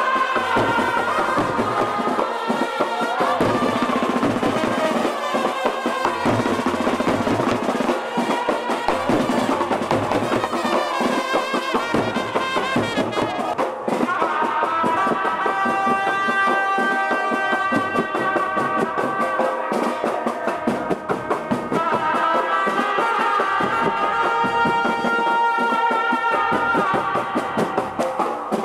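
Street brass band playing: trumpets carry a held-note melody over drums.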